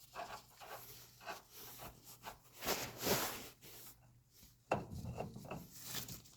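Rubbing and scraping of metal parts as a nut is worked onto a traction bar mounting bolt by hand, with a louder scrape around the middle and a sharp click about three quarters through.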